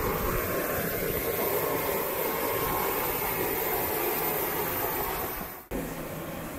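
Steady rumble and hiss of aircraft noise on an airport apron. It cuts off abruptly about five and a half seconds in, replaced by a quieter steady hum.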